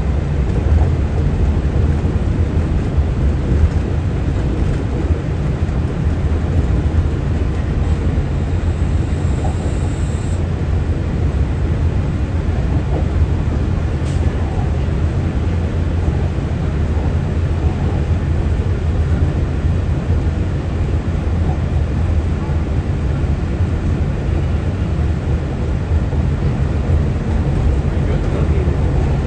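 Walt Disney World monorail running along its beam at steady speed: a continuous low rumble.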